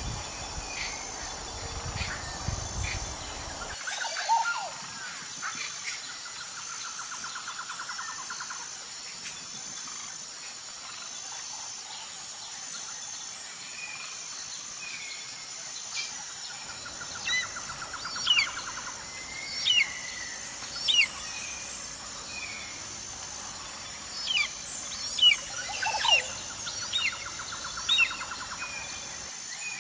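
Bird chirps over a steady high insect drone, with a pulsing trill coming and going every few seconds. In the second half the sharp chirps come in quick clusters and are the loudest sounds.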